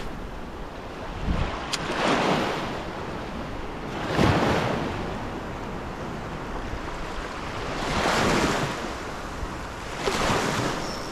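Small waves washing in at the shoreline, about four swells that rise and fade, with wind on the microphone.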